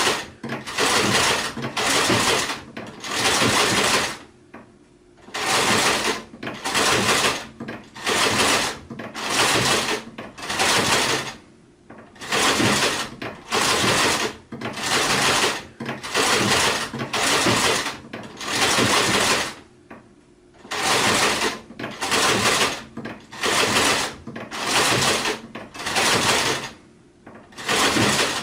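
Sewing machine stitching in short runs of about a second, stopping and starting again over and over, with a few longer pauses between runs.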